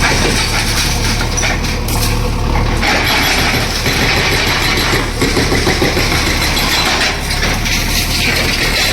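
Heavy diesel engine of a demolition machine running steadily, with a dense mechanical clatter over it that shifts in character a couple of times.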